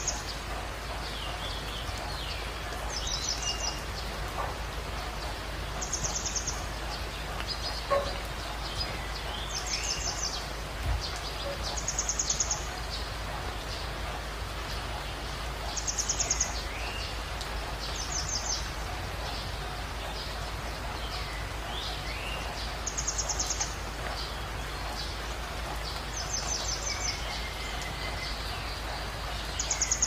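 Wild birds calling over a steady hiss: a short, high, rapid trill repeats every few seconds, with fainter chirps in between.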